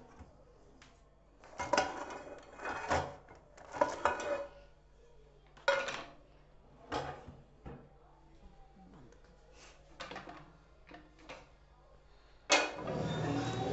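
Kitchen drawers sliding open and shut and a nonstick frying pan clattering as it is taken out and set down on a gas stove: a series of separate knocks and rattles. Near the end the sound cuts abruptly to a louder steady background.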